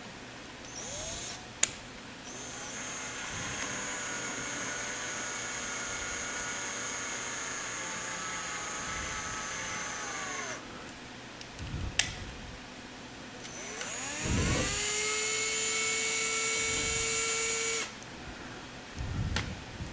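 Electric drill run twice: the motor whines up to speed and holds a steady pitch for several seconds, then winds down. The second run is louder. A sharp click comes before each run.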